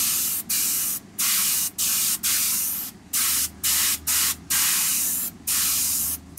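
Airbrush spraying thinned paint in a string of short, high hisses, the trigger pressed and released about ten times with brief gaps between bursts.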